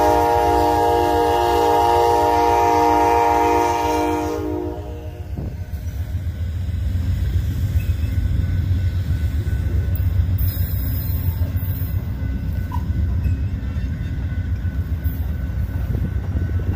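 Amtrak GE P42DC locomotives' horn blowing a steady multi-note chord, cutting off about four seconds in. The train's bi-level passenger cars then roll past with a low rumble and the clatter of wheels on rail joints.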